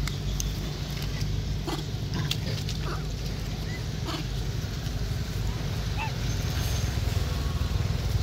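Long-tailed macaques giving a few brief small calls, with scattered short clicks, over a steady low rumble.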